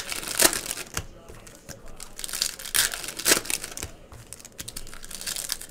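Foil wrappers of trading-card packs crinkling and tearing as they are ripped open, in a series of short crinkles.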